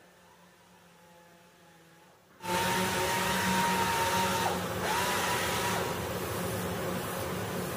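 Orbital sander switching on suddenly about two and a half seconds in, then running with a steady whine and hiss as it sands cured body filler on a car's fender. The whine dips briefly in pitch midway.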